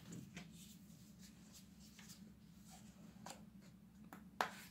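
Faint handling noise: scattered soft clicks and light rustles over a steady low hum, with one sharp click about four and a half seconds in.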